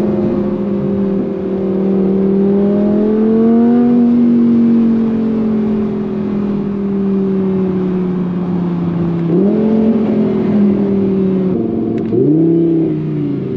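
Sports car engine running under steady throttle with a droning note. The pitch rises gently, then sags slowly, and jumps sharply twice near the end.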